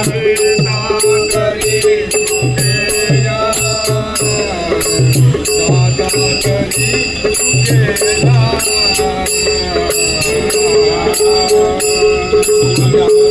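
Devotional bhajan music without words: a melody line bends over a steady held drone, while a drum and jingling hand percussion keep a regular beat.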